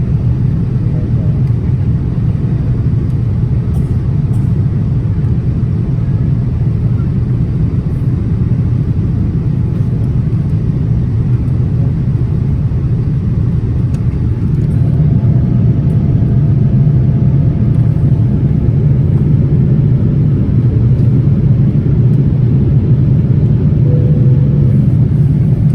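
Steady low rumble of engine and airflow noise inside the cabin of a Boeing 787-10 airliner in flight, growing slightly louder about halfway through.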